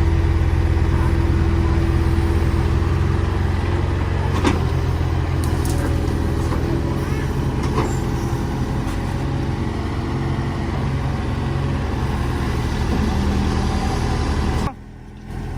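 A hydraulic excavator's diesel engine runs steadily, with a couple of light knocks. The sound drops away abruptly near the end.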